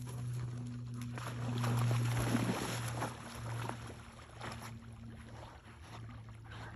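Dogs swimming and splashing in a pond over a steady low hum. The splashing is strongest a couple of seconds in, then fades.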